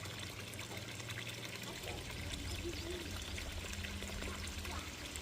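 Water pouring steadily from a pump-fed DIY fountain spout and splashing into a pot of water.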